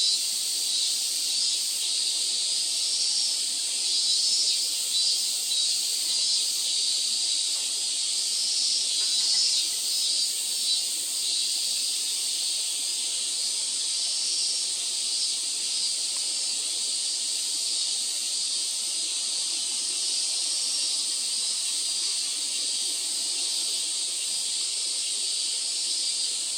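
Steady high-pitched outdoor hiss, pulsing faintly during the first half.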